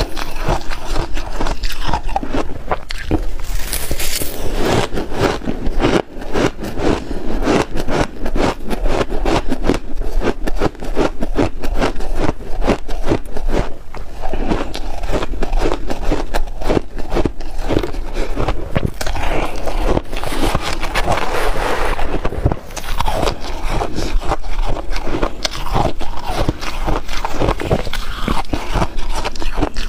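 Close-miked crunching of shaved ice: a spoon scraping through a tray of shaved ice and icy mouthfuls being bitten and chewed, a dense crackle that hardly lets up.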